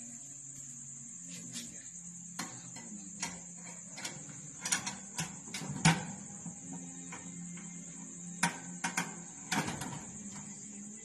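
Electric rotisserie oven running with a low hum and a steady high whine, while a hand handles the oven's metal rack and drip tray, giving sharp clicks and knocks, mostly a few seconds in and again near the end.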